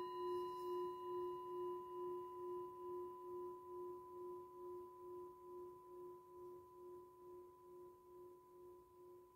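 A metal singing bowl, struck just before, ringing out with a low hum and a fainter higher overtone. It fades slowly with a steady wobble of about two pulses a second.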